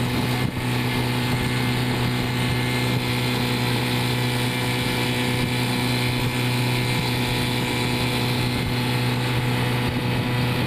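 Motorboat engine running steadily at cruising speed, with water rushing past the hull.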